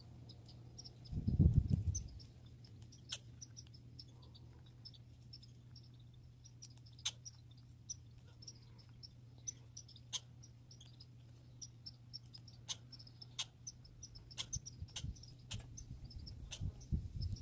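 Squirrel sounds: scattered, irregular sharp clicks and ticks, sometimes several close together. There is a brief loud low rumble about a second and a half in, and a faint steady low hum underneath.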